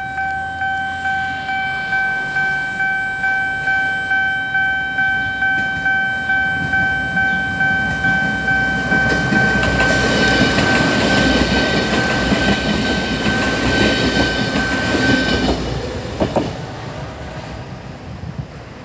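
A level-crossing warning signal sounds a steady electronic tone, pulsing about one and a half times a second, while a diesel passenger railcar passes over the crossing. The train noise swells from about halfway through and drowns the tone. The alarm cuts off after about fifteen seconds, and the train noise then fades away.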